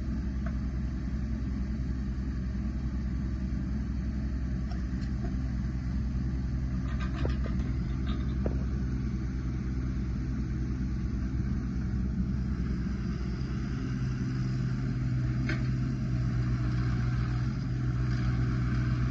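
2021 JCB 16C mini excavator's diesel engine running steadily while the hydraulic arm and bucket are worked, with a few light clanks about seven to eight seconds in. The engine note grows louder and heavier over the last few seconds as the machine slews and moves off.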